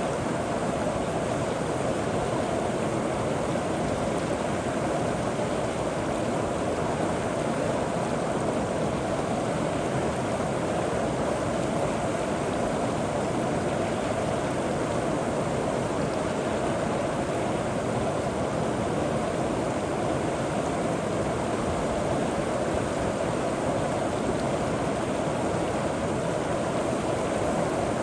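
River water flowing over rocks and pebbles, a steady rushing with no breaks or changes.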